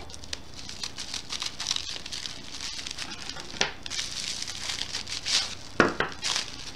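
Bubble wrap crinkling and rustling in the hands as it is cut open and pulled off a clear plastic roller, with one louder sharp crackle near the end.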